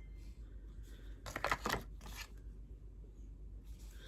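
Tarot cards being handled and slid against one another, a few short papery swishes about a second and a half in.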